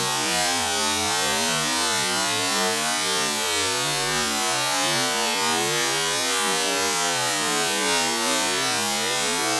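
Small motorcycle engine running, its buzzing note rising and falling with the throttle, over a steady hiss.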